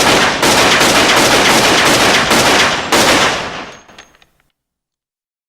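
9mm Glock semi-automatic pistol fired in a rapid string of about ten shots, roughly three a second, each shot running into the echo of the last. The firing stops about three seconds in and the echo dies away over the next second.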